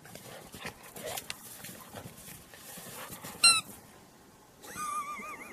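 A dog's high-pitched squeak and whine: one short, sharp squeak about three and a half seconds in, then a wavering whine near the end, over light rustling and clicks.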